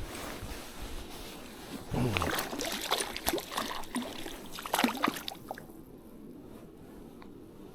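Water splashing and sloshing at the water's edge, with scattered clicks and knocks. It quietens to a faint even wash after about five and a half seconds.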